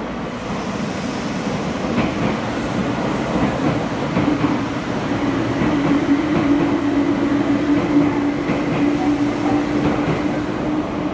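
Red Meitetsu electric train running through an underground station platform, out of service and passing without stopping, its wheels rumbling on the rails. A steady low hum joins about four seconds in, and the noise is loudest about eight seconds in as the cars go by.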